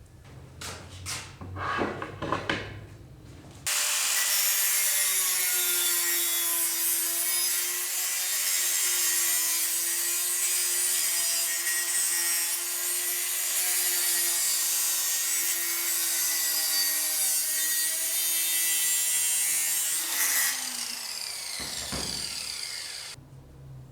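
A few light knocks, then an electric power tool runs at a steady speed for about sixteen seconds with a steady hum and a loud hiss, as in abrasive rust removal on a knife blade. Near the end it switches off and winds down with a falling whine.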